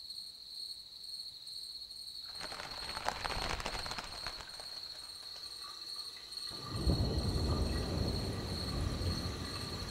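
Trailer soundtrack of layered ambient sound. A steady high-pitched whine is joined about two seconds in by dense crackling, and near seven seconds in a low rumble comes in suddenly and carries on.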